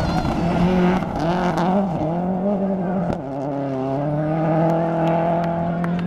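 Subaru Impreza WRX STI rally car's turbocharged flat-four engine revving hard through a gravel corner, its note wavering, then dropping with a gear change about three seconds in and climbing steadily as the car accelerates away.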